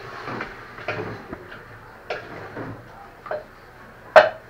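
A utensil stirring chicken pieces in a cooking pan, knocking and scraping against the pan in a series of irregular clicks, with one louder knock near the end.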